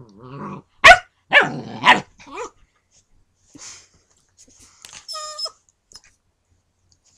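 German Shepherd puppy barking: a quick run of four short, sharp barks about a second in, the first the loudest. Fainter sounds follow, then a brief high whine about five seconds in.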